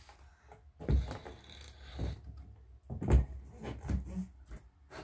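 A few dull knocks and bumps of things being handled in a room, about one, two, three and nearly four seconds in, the loudest around three seconds, with light rustling between them.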